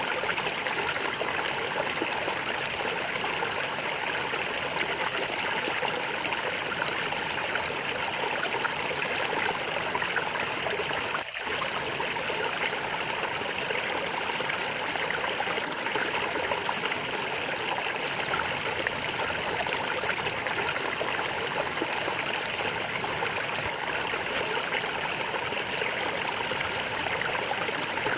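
Flowing water gurgling and running steadily, with a momentary dip in level about eleven seconds in.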